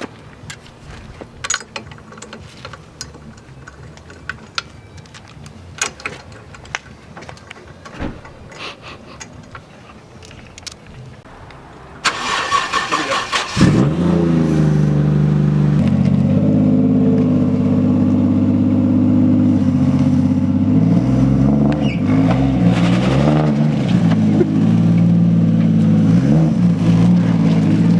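A few scattered clicks and knocks, then the Toyota JZX90's straight-six engine cranks on the starter for about a second and a half and fires about halfway through. It settles into a steady idle, with a few short blips of the throttle later on.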